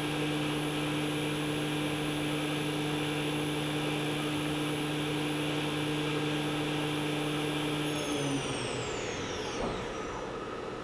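Sharp SV-6030 CNC vertical machining center's 40-taper spindle running steadily at 9000 RPM with an even hum and a high whine. About eight seconds in it is switched off and spins down, its whine falling away.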